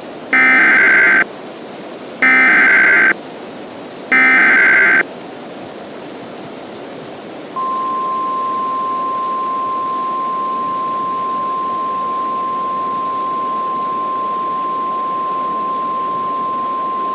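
Emergency Alert System SAME header: three identical screechy digital data bursts, each just under a second long and about a second apart. Then the steady single-pitch 1050 Hz NOAA Weather Radio warning alarm tone holds for about ten seconds, announcing a warning broadcast, over a faint radio hiss.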